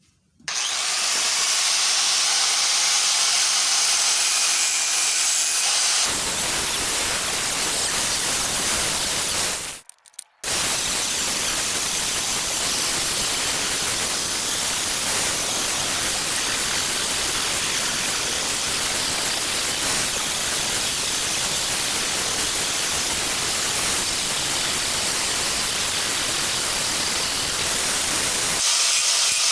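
Steady rushing hiss, thin and high for about the first six seconds, then fuller and deeper, broken by a brief gap about ten seconds in.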